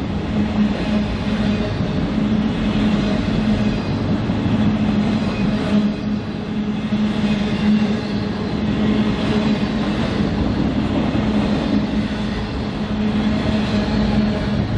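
Freight train rolling past on the rails: a continuous steady rumble of wheels and cars, with a steady low hum underneath.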